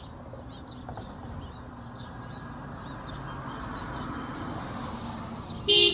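A passing car's road noise swells over a few seconds, then near the end a car horn gives one short, loud honk in answer to the kids' arm-pump signal.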